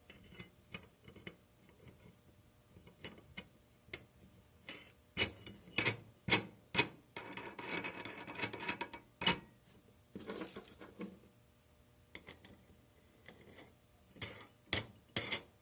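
Metal clinks, taps and ticks from a mold frame and its clamp being handled and fitted together, with a longer rasping scrape in the middle and a quick run of sharper clicks near the end.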